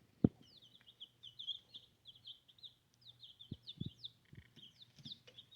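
Young chickens peeping: a steady stream of short, falling peeps. A single sharp click comes about a quarter second in, and a few soft knocks come around the middle.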